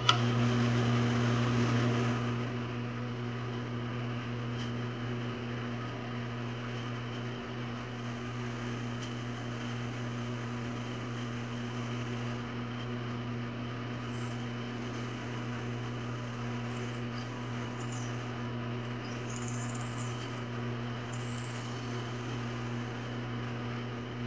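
Drill press motor running with a steady hum. For about the first two seconds it is louder and rougher as the bit bores into a block of stacked wooden handle scales, then it runs on steadily.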